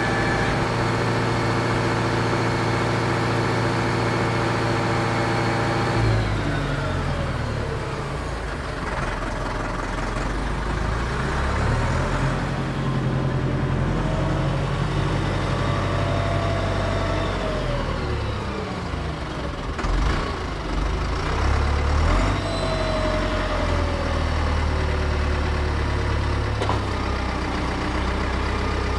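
Deutz DX 4.50 tractor's air-cooled diesel engine running at a steady high speed, dropping in revs with a falling pitch about six seconds in. It then keeps changing speed, its pitch rising and falling as the tractor drives and works its front loader.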